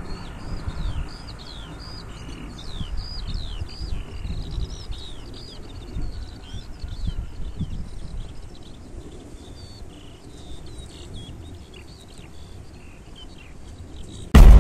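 Songbirds chirping and trilling rapidly and continuously over a low, uneven rumble of outdoor noise. A sudden loud sound cuts in right at the end.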